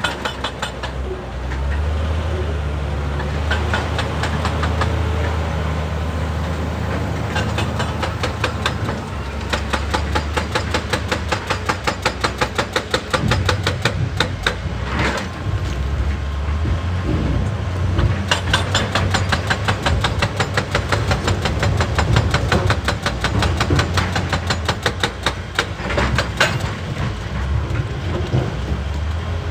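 Large hydraulic excavator's diesel engine running steadily, joined about nine seconds in by a rapid, even hammering of blows that keeps on to near the end: a hydraulic rock breaker pounding on stone.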